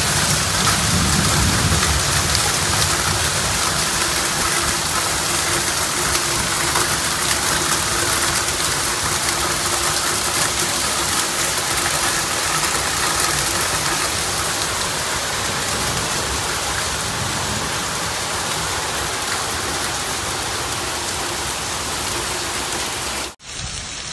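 Heavy downpour: a steady, dense hiss of rain with a faint steady hum underneath, dipping briefly near the end.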